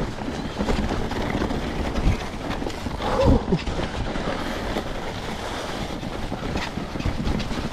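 Trek Rail electric mountain bike ridden down a slippery, muddy, snow-covered trail: a steady rumble of tyres over rough ground with rattling and knocks from bumps. A short pitched squeal sounds about three seconds in.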